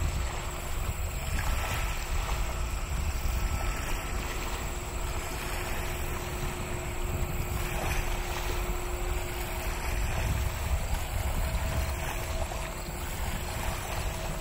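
Jet airliner engines: a steady low rumble carrying faint, steady whine tones, mixed with wind noise.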